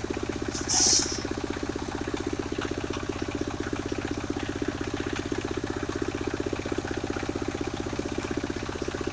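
Engine of a portable circular sawmill running steadily between cuts, with a fast, even firing pulse. A brief loud hiss comes about a second in.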